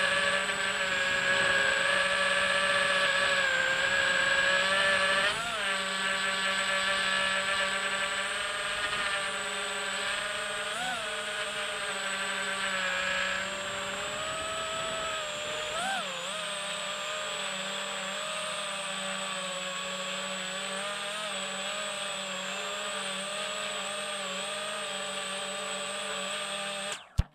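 Electric motors and propellers of an FPV quadcopter drone whining steadily as it flies, picked up close by the drone's own camera. Several tones sound together, jump briefly in pitch about three times and settle quieter after about sixteen seconds, then cut off abruptly at the very end.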